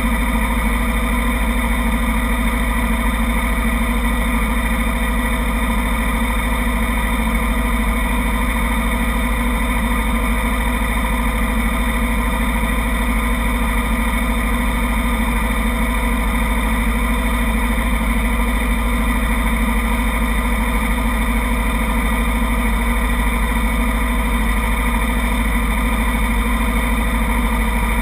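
250-class race motorcycles idling steadily in a group, an even engine drone with a heavy, constant low rumble and no revving.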